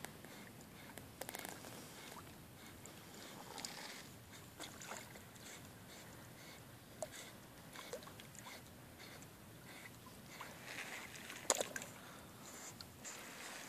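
Dog swimming in a river: faint sloshing and small splashes of water around it, with a few sharp clicks, the loudest about eleven and a half seconds in.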